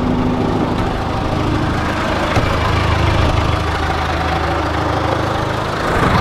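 John Deere backhoe's engine running steadily; its low note strengthens and changes about two and a half seconds in.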